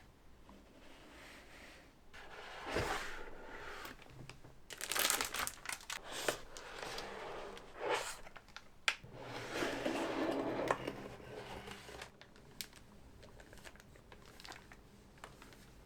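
Packaging being handled by hand during unboxing: irregular crinkling and rustling of wrapping with a few sharp light clicks, easing off near the end.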